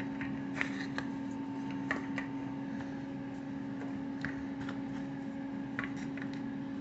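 Microwave oven running with a steady hum, with a dozen light clicks and taps of small objects being handled.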